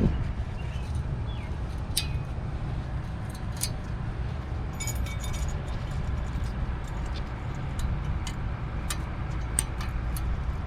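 Scattered light metallic clicks and clinks from brake hardware clips and parts being handled and fitted on a disc brake caliper bracket, with a short rattle about five seconds in, over a steady low rumble.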